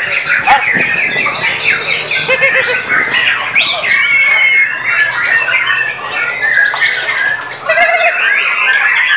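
White-rumped shama (murai batu) singing a rapid, varied song of chirps, trills and whistled glides, dense and unbroken throughout.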